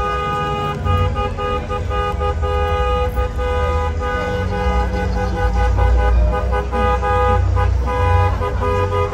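Vehicle horn honking in rapid repeated blasts, almost without pause, over a deep low rumble of engines.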